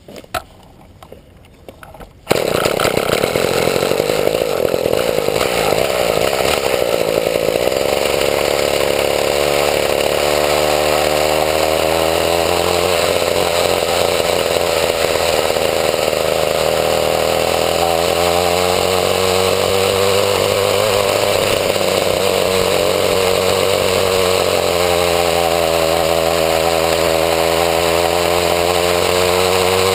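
The 28–31cc two-stroke weed eater engine of a homemade motorbike comes in abruptly about two seconds in. It then runs loud and steady under load, its pitch rising and falling a few times and climbing toward the end.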